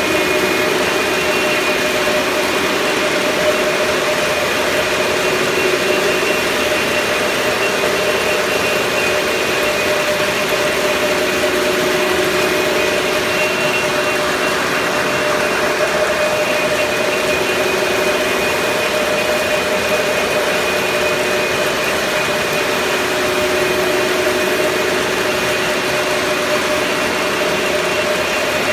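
A steady mechanical drone that holds a few constant tones, without change.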